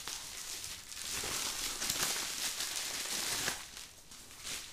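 Plastic bubble wrap rustling and crinkling as it is pulled off and unwrapped by hand, with small crackles, dying down near the end.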